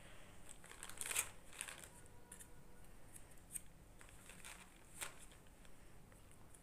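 Faint rustling and scratching of cotton wool being pulled from its plastic packet and packed into a small metal can. It comes as a string of short scratchy rustles, the loudest about a second in.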